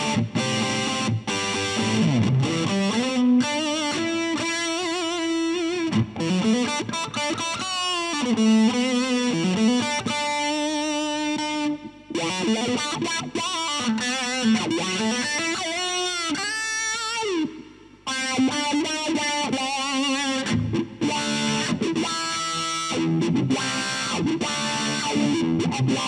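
Distorted electric guitar played through an amp and pedal board: fast lead-style licks with bent notes and swooping dips in pitch. The sound cuts off sharply twice, about 12 and 18 seconds in.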